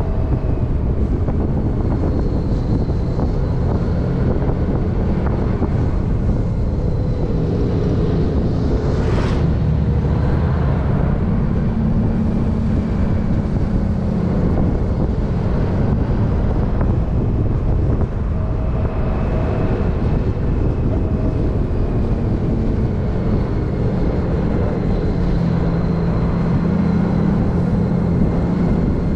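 Vehicle engine running on the move, its note rising and falling with speed, under a heavy rush of wind noise on the microphone.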